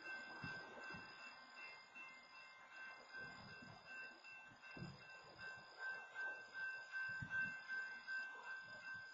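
Railroad crossing warning bell ringing faintly and continuously beside a stopped freight train. Irregular low thuds sound underneath it.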